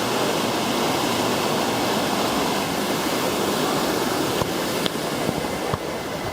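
Steady rushing noise of running water, like a waterfall, with a few faint clicks near the end as it eases a little.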